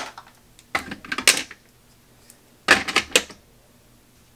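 Plastic makeup tubes and pencils clicking and clattering against one another and a clear plastic organizer tray in a drawer as they are handled and set down, in three short bursts of clatter.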